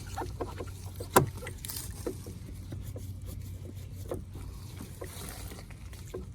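Small clicks and taps of a Phillips screwdriver and screws being driven back into a minivan's plastic taillight housing, with one sharper click about a second in, over a steady low hum.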